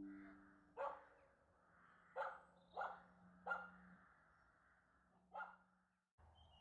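A dog barking five times at uneven intervals, while the last notes of plucked-string music fade out in the first second.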